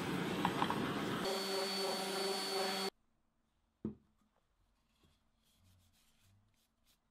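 Handheld butane blowtorch flame hissing for about three seconds, taking on a steady humming tone partway through, then cutting off abruptly. After that come a single knock and faint cloth rubbing on the wooden piece.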